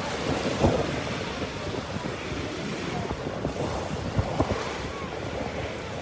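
Small waves breaking and washing up a sandy beach in a steady rush of surf, with wind buffeting the microphone in irregular low rumbles.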